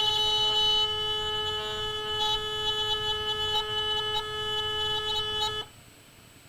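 Steady, buzzy mid-pitched tone from a homemade loudspeaker: an electromagnet, switched several hundred times a second by an electronic oscillator, shakes a permanent magnet fitted with a paper cone. A few faint clicks come through along the way, and the tone cuts off suddenly near the end.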